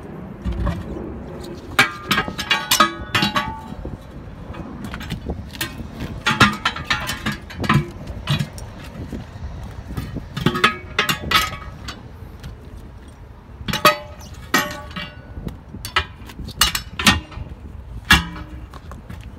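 Tire iron clanking and scraping against a steel truck wheel as a semi-truck tire is pried off its rim by hand. Repeated metallic clinks and knocks that ring briefly, in clusters every few seconds.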